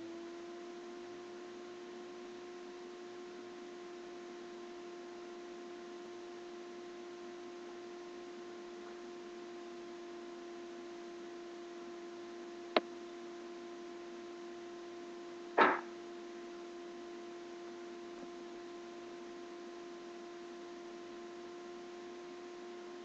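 Steady electronic hum with a faint hiss, broken by two short clicks about three seconds apart, the second a little longer and the loudest.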